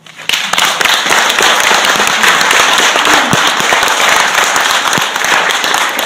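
Audience applauding, breaking out suddenly just after a speech ends and carrying on loudly as a dense crackle of many hands clapping.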